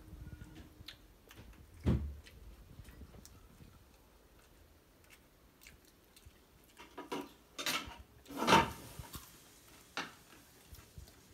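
Small clicks and knocks of people eating at a floor spread of plates and glasses, with a sharp knock about two seconds in and a short run of louder rustling, crunchy noises about eight seconds in.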